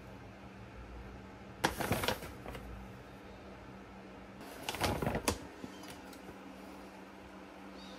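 Paper flour bag rustling as a metal spoon scoops flour from it, in two short bursts about two and five seconds in, the second ending in a light click. A low steady hum runs underneath.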